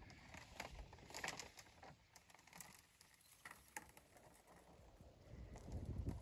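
Faint rustling and scattered clicks of soil and tangled roots being handled, with low bumping noises swelling near the end.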